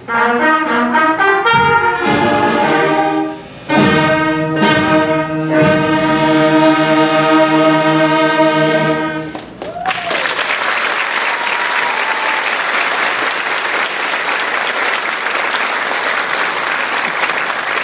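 A concert band with prominent brass playing its closing phrases, ending on a long held chord about halfway through. Audience applause follows, with a short whistle as the clapping begins.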